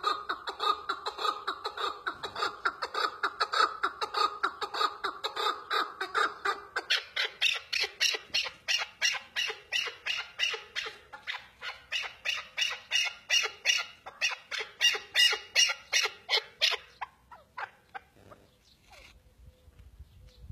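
Chukar partridge calling: a long, fast run of clucking notes, about five a second. About seven seconds in, the notes turn higher and harsher, and the calling stops about seventeen seconds in.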